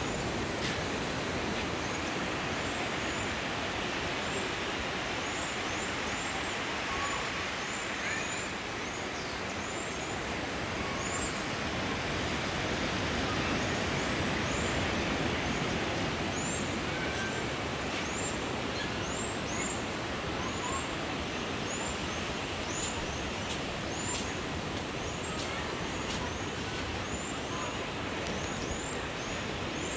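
Steady rush of surf and wind, with a small bird repeating short, high chirps again and again over it.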